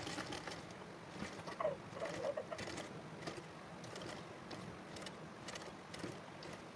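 Domestic sewing machine stitching slowly in short, uneven runs, its needle and feed mechanism clicking as lace is sewn around a curved neckline.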